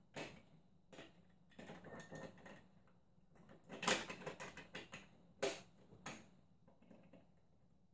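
LEGO Duplo plastic bricks and train pieces clicking and knocking together as they are handled and pressed on, in scattered light clicks, the sharpest about four and five and a half seconds in.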